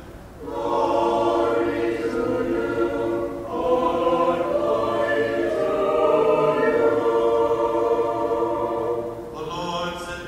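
Greek Orthodox church choir singing a liturgical response in unaccompanied harmony, in two sustained phrases with a short break about three and a half seconds in.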